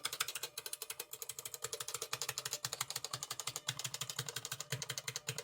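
Buckling-spring keys of a Brand New Model F mechanical keyboard being pressed rapidly, a fast, even run of clicks.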